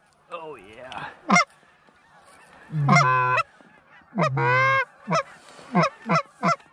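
Canada goose honks: a few softer overlapping honks, then loud, close, drawn-out honks, breaking into a quick run of short clucks near the end.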